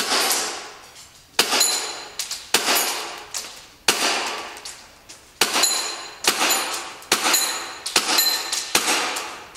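Tokyo Marui S&W M&P9 gas-blowback airsoft pistol firing a string of single shots, each a sharp gas pop and slide clack with an echoing tail. The shots come about a second apart at first and faster in the second half.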